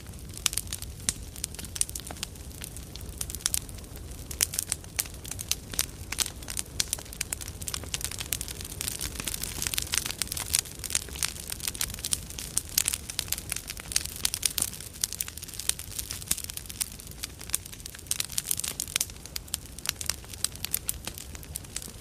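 Large campfire burning: dense, irregular crackling and sharp pops over a steady low rumble of flame.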